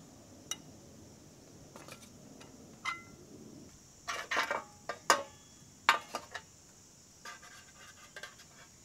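Metal tongs and utensils clinking and clattering against a plate and a metal pot: scattered sharp clicks, a couple of short ringing clinks, and a busy run of louder clanks about four to six seconds in.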